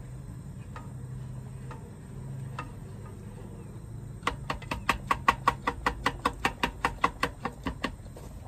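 Plastic rice paddle stirring rice and water in a saucepan: a few soft scattered taps, then from about halfway a fast, even run of ticks, about six a second, as the paddle knocks against the pot.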